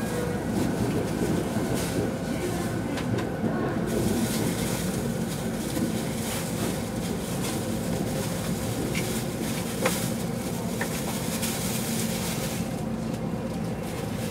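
Steady hum inside a stationary JR East E257 series train car waiting at a station platform, heard through the car, with faint station noise and a sharp click after about ten seconds.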